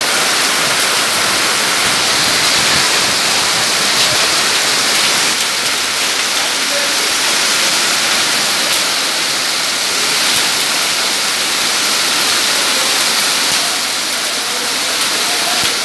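A hailstorm with heavy rain pelting down: a loud, steady rush of falling water with scattered sharp ticks of hailstones striking the ground.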